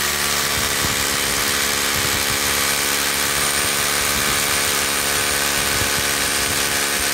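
Makita hammer drill running at a steady speed, its masonry bit boring into the mortar joint between a concrete foundation beam and brick.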